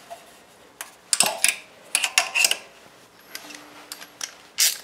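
A few sharp clicks and light metallic clatter in short bursts, about a second apart, as the spark plug boot is pulled off a small generator engine and tools are handled.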